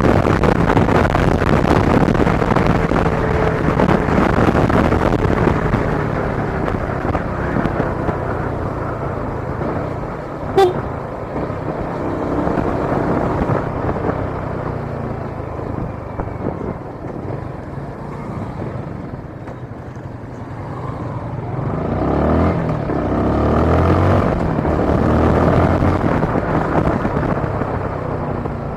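Road traffic noise: motor vehicles running and passing, with a sharp click about ten seconds in and a louder vehicle swelling past near the end.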